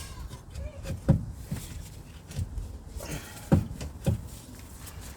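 A few sharp knocks and clunks of tools and parts during hand work on a car's steering rack: one about a second in and two close together near the end, over a low rumble.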